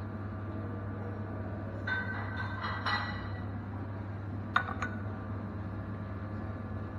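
A few light clinks with a brief ring, the sharpest and loudest about halfway through, over a steady low hum.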